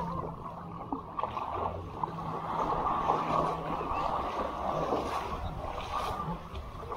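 Sea water sloshing and lapping, heard muffled, with a steady low hum underneath for the first few seconds.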